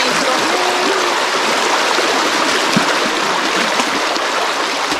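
Creek water flowing steadily, an even, loud rush of water.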